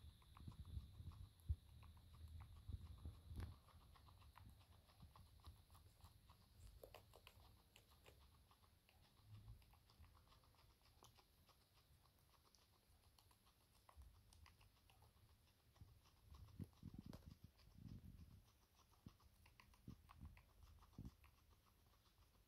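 Guinea pig tearing and chewing fresh grass: faint, quick crunching clicks with the blades rustling, plus a few low thumps in the first few seconds and again past the middle.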